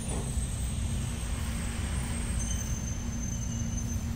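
A steady low mechanical rumble, even throughout with no distinct knocks.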